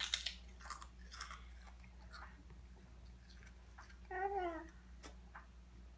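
Toddlers biting and chewing crisp crackers, with sharp crunches in the first second or so and softer chewing after. About four seconds in, a child makes a short wordless vocal sound.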